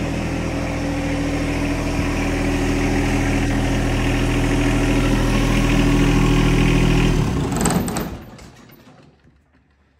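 John Deere compact tractor's diesel engine idling steadily, growing a little louder, then switched off about seven seconds in and dying away within about a second, leaving near silence.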